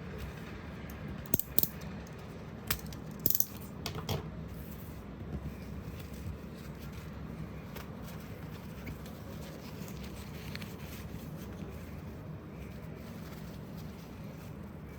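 A handful of light, sharp clinks of small hard objects, bunched in the first four seconds, over a steady low background hum.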